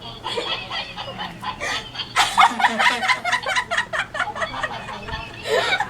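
A girl cracking up with laughter: giggling at first, then a run of quick, breathy laughing bursts from about two seconds in.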